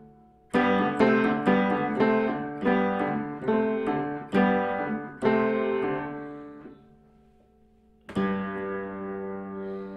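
An upright piano played by hand: a phrase of struck notes and chords roughly every half second, dying away into a short pause. About eight seconds in, a chord is struck and left ringing.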